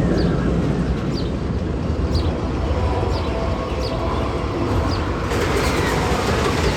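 Magnum XL 200 steel roller coaster train rumbling along its track, with a short high tick repeating roughly every three-quarters of a second. About five seconds in, the noise turns brighter and hissier.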